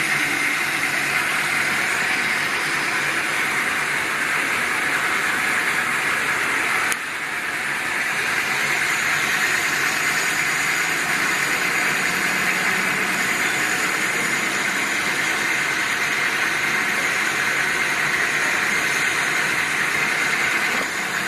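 Hardinge HC CNC lathe running: a steady, even machine noise with a hissy edge. About seven seconds in there is a click and a brief dip, after which it carries on.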